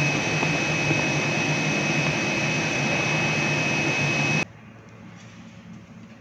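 Steady, loud rushing of the CNC cutting table's vacuum suction blower, with a constant high whine over a low drone. It cuts off abruptly about four and a half seconds in, leaving much quieter background noise.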